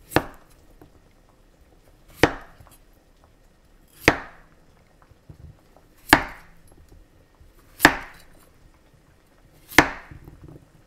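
Kitchen knife cutting through a peeled potato and striking the cutting board: six sharp chops, about two seconds apart.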